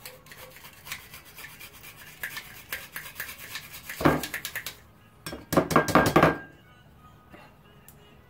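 Green plastic garlic press worked over a small glass bowl to crush garlic: a run of small clicks and scrapes, a loud knock about four seconds in, then a burst of rapid knocking and scraping just before six seconds.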